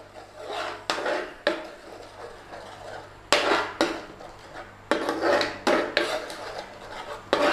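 Metal utensil scraping and knocking against a pan in irregular strokes, stirring base gravy into a curry's spice paste, over a faint steady low hum.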